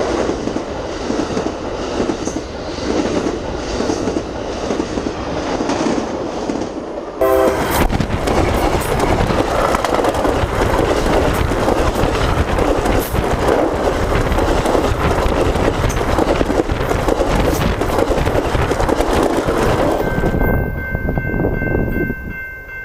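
Amtrak passenger cars rolling past at speed, the steel wheels clicking and rumbling over the rail. About seven seconds in the sound jumps louder and heavier, heard from right at the rail as the cars pass overhead. Near the end the rumble falls away as the train clears, leaving a few steady high tones.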